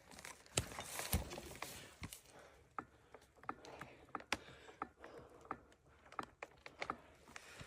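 Faint, irregular clicks and light knocks, a couple slightly louder about a second in, with no chainsaw running.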